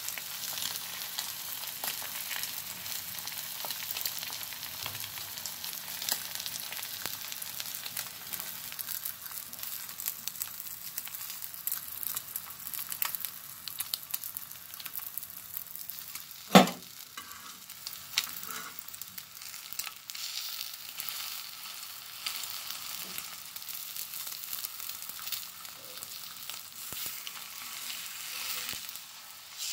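Egg frying in a green capsicum ring on a flat griddle: a steady sizzling hiss with fine crackles. One sharp knock a little past halfway through.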